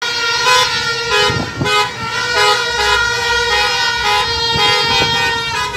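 Several vehicle horns of a passing motorcade honking together in long, overlapping blasts that start and stop at different times.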